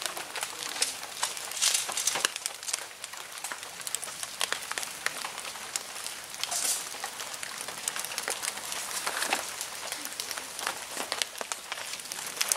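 Irregular light crackling and rustling of dry leaf litter and tent nylon, with a couple of louder crinkles about two seconds in and near the middle.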